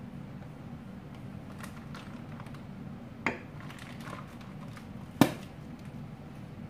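Two sharp knocks of things handled on a kitchen counter, about two seconds apart, the second louder, with a few faint taps over a steady low hum.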